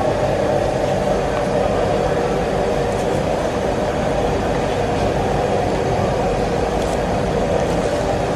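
Steady loud roar of commercial kitchen equipment, with a few faint knocks over it.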